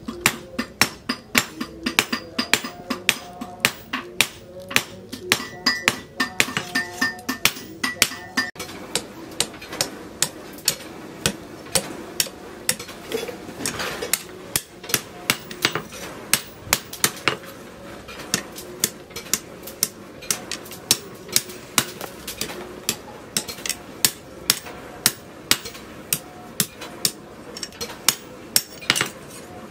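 A hand hammer repeatedly striking a steel cleaver blade on a steel post anvil, in a steady rhythm of about two sharp, ringing metal-on-metal blows a second.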